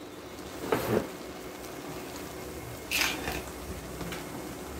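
A ladle scooping and stirring cooked coconut rice in a large metal pot, with two brief scrapes against the pot, one just under a second in and another about three seconds in.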